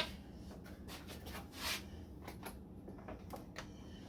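Faint handling noises: scattered light clicks and taps with a short rustle, over a faint steady low hum.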